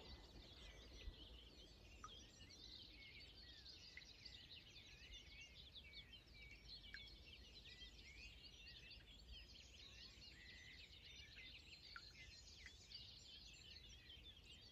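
Faint birdsong from several small birds, a continuous stream of quick chirps and trills, over a low steady rumble.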